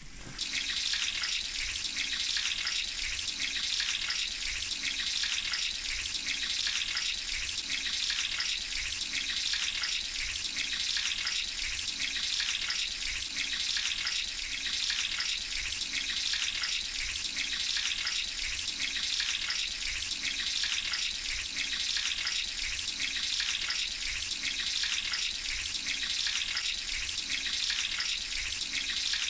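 Hot oil sizzling steadily with fine crackling as minced-meat kebab patties deep-fry in a large wok.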